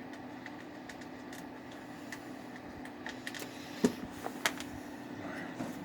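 Small clicks and taps of hands and a screwdriver working at a desktop computer's metal case and CD-ROM drive, with two sharper clicks about four seconds in, over a steady low hum.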